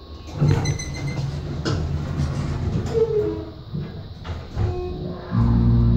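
Otis elevator car doors sliding shut with knocks and rattles. About five seconds in, the elevator's drive machinery starts with a loud, steady low hum as the car sets off.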